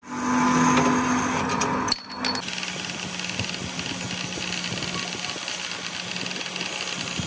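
A bench buffing wheel running steadily with a hum while a steel truck kingpin is held against it to polish the shaft. It is preceded, for about the first two seconds, by a louder, different sound that cuts off abruptly.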